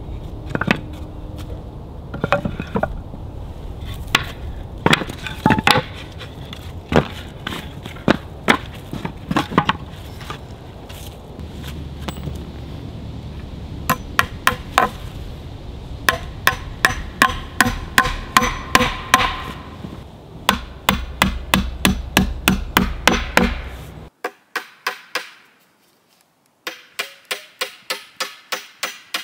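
Hammer blows on wooden pallet boards: scattered knocks of boards being laid out, then steady runs of about three blows a second driving nails. Near the end, after a brief quiet gap, quicker blows of about four a second knock a pallet board loose.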